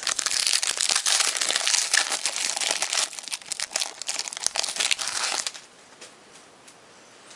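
Foil trading-card pack wrapper crinkling as it is torn open and handled, with a dense run of crackles for about five and a half seconds before it stops.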